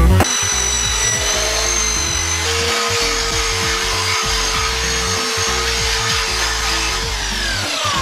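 Handheld electric sander running steadily against a metal bike frame to strip the old paint, with a high-pitched whine that winds down in pitch near the end as the motor is switched off. Background music plays underneath.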